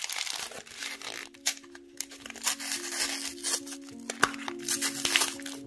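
Crinkling and rustling of a yellow padded mailer's paper and plastic as hands grip and turn it, in short crackly bursts. Soft background music with held low notes comes in about half a second in.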